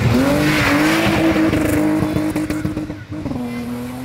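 Rally car accelerating hard past on a gravel road, engine held at high revs with a gear change right at the start and another about three seconds in, tyres hissing on the gravel over the first second or so.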